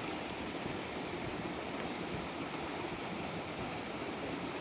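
A creek's water flowing with a steady rush.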